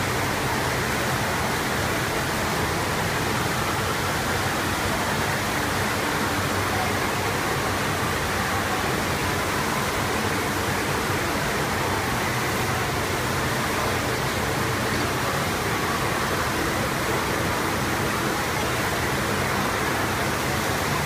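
Steady rush of a thin, fast sheet of pumped water flowing up the slope of an indoor surf simulator (wave machine); an even, unbroken noise with no pauses.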